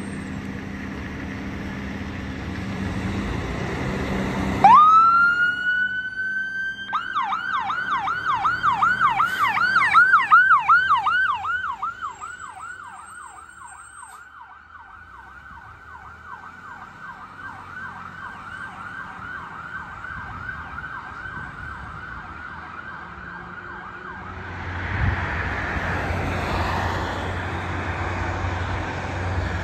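Fire engine's siren starting about five seconds in with a quick rising wail, then switching to a fast yelp of about four cycles a second that fades as the truck drives away. Before the siren, the engine is heard running. Near the end, road noise and another siren starting to rise.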